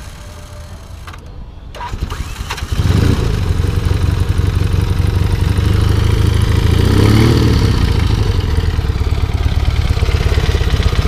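Engine with a sticking starter bendix being cranked by its electric starter, catching about three seconds in and then running steadily and loudly, with a brief rise and fall in speed near the middle.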